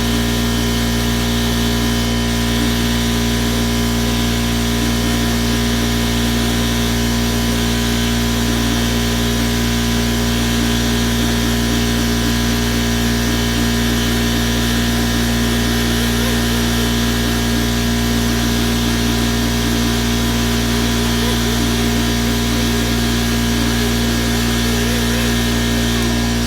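Air-powered angle grinder with a 3M rubber eraser wheel running steadily while it strips old adhesive tape from car paint.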